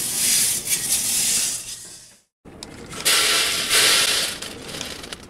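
Coffee beans rattling against a perforated metal rotisserie basket. After a brief break a second, louder rattle follows as the roasted beans pour out of the basket onto a metal tray.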